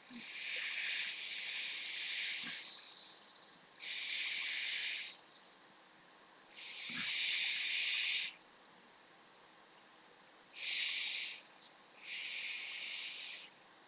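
Hakko FR810B hot air rework station blowing 360 °F air in five separate bursts of hiss, each lasting about one to nearly three seconds, with short pauses between.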